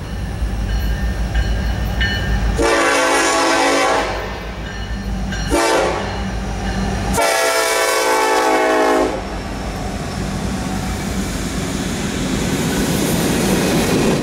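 Union Pacific diesel freight locomotive's multi-chime air horn sounding three blasts: long, short, then a longer one. The steady low rumble of the passing train runs beneath them.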